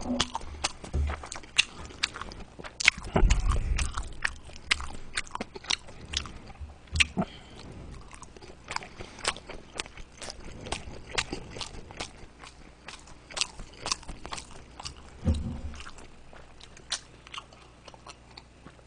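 Close-miked chewing of a mouthful of steamed dumplings (mandu): many wet mouth clicks and smacks at an irregular pace, thinning out over the last few seconds, with a couple of low thuds.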